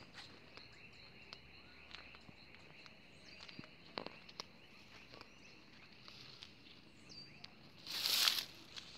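Slow footsteps and light rustling through weeds, with a faint, steady, high-pitched insect buzz in the background. About eight seconds in there is a loud rustle lasting about half a second.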